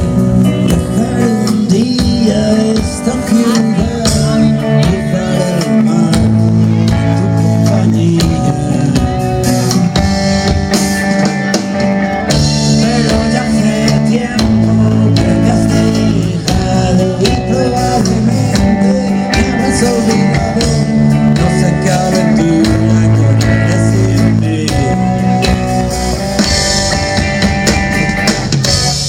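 Band music with electric guitar, bass, drum kit and singing, playing steadily throughout.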